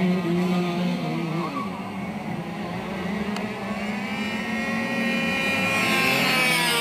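Radio-controlled model plane's motor running in flight, its pitch wavering with the throttle. Near the end it gets louder and rises sharply in pitch as the plane flies close past.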